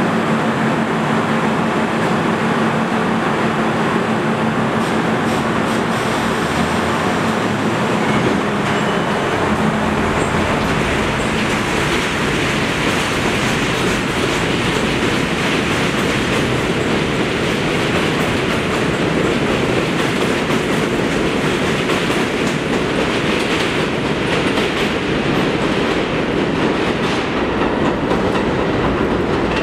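R32 subway train pulling out of an elevated station: a steady hum for about the first ten seconds as it starts to move, then the wheels running and clattering on the elevated track as it gathers speed.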